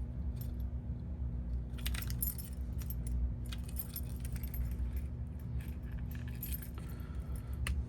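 A metal key ring and small keychain parts clinking and rattling lightly as they are handled, in scattered bursts of short clicks.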